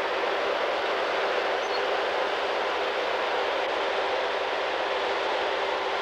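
Timberjack 618 tracked feller buncher's diesel engine running with a steady drone.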